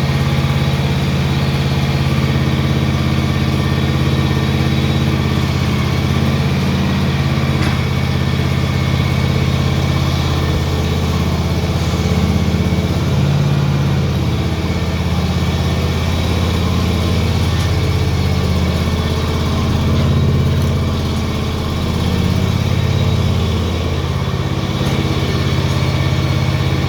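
John Deere X580 lawn tractor's engine running steadily at a fairly even speed, its tone shifting slightly a few times.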